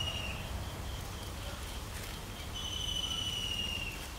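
A high, thin whistle-like animal call from outdoor wildlife: a long steady note sliding slightly down in pitch, ending about a third of a second in and sounding again for about a second and a half near the end.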